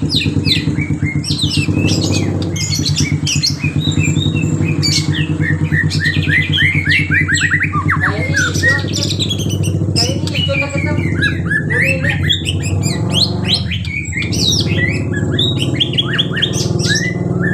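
White-rumped shama singing a long, rapid, varied song of quick sweeping whistles and chattering phrases, filled with imitations of lovebird and canary calls. A steady low hum runs underneath.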